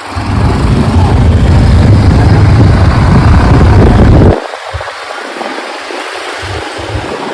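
Wind buffeting the microphone of a camera on a moving motorcycle, as a loud low rumble that cuts off suddenly about four seconds in. A few short, softer gusts follow.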